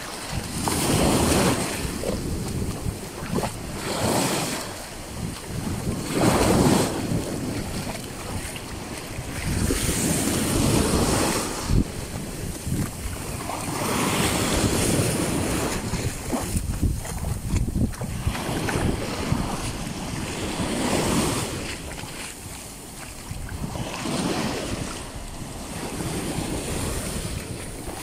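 Small waves breaking and washing up a sandy beach, swelling and fading every few seconds, with wind buffeting the microphone as a constant low rumble.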